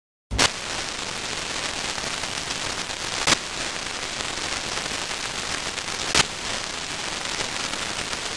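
Loud, even static hiss that cuts in suddenly out of dead silence, with three sharp pops about three seconds apart.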